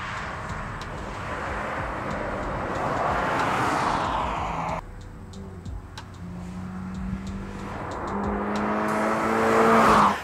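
2022 Toyota GR86's 2.4-litre flat-four engine and exhaust as the car drives hard on a race track, swelling in loudness until it cuts off suddenly about five seconds in. The car then approaches again with the engine note changing pitch, growing steadily louder to a close pass near the end, where the sound cuts off abruptly.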